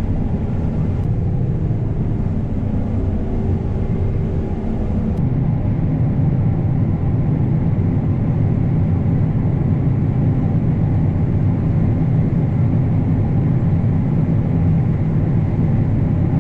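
Combine harvester (a John Deere S780) running steadily under load while cutting wheat, heard from inside the cab as a constant low engine and machinery hum.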